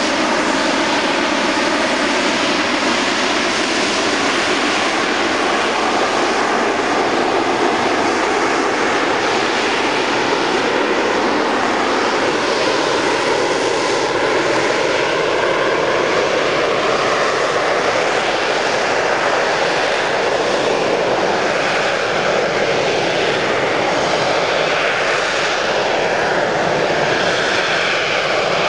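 Harrier GR9A's Rolls-Royce Pegasus vectored-thrust turbofan running at high power in the jetborne hover: a steady, loud jet noise with a whine that slowly wavers and drifts in pitch as the aircraft turns.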